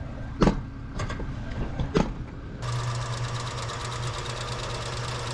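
Three sharp knocks in the first two seconds, then a vehicle engine idling steadily, which cuts in suddenly about two and a half seconds in.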